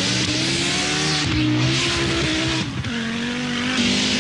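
Rally car engine revving hard, its note climbing and dropping back a few times as it shifts, over a steady hiss.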